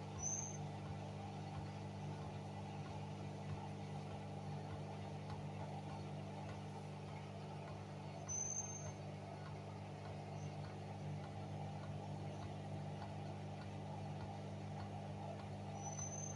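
Hoover washing machine humming steadily as the first rinse ends, just before the second spin, with a short high chirp three times about eight seconds apart.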